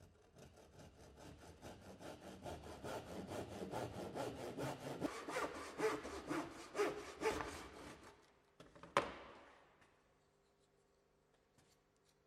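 Tenon saw cutting through timber in steady back-and-forth strokes that grow louder over the first few seconds and stop after about eight and a half seconds. A single sharp knock follows about a second later.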